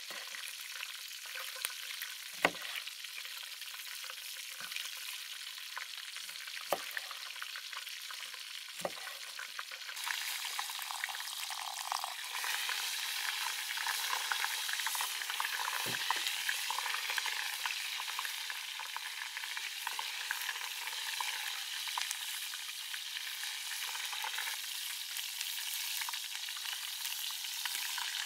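Steady sizzling of food frying in a pan, getting louder about a third of the way in. A few sharp knocks of a knife on a wooden cutting board in the first third.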